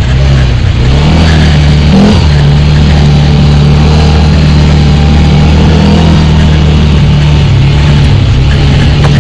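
ATV engine running under throttle close to the microphone, its pitch dipping and rising over the first two seconds, then holding steady.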